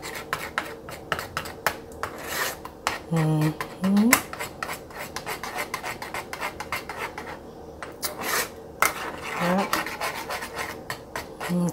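A metal spoon stirring thick sauce in a small saucepan, scraping and clicking against the pan's bottom and sides in quick, irregular strokes.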